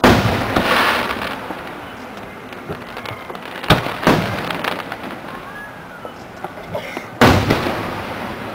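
Aerial fireworks shells booming high overhead: a loud pair of booms right at the start, another pair a little before the middle, and one more near the end, each trailing off in an echoing rumble.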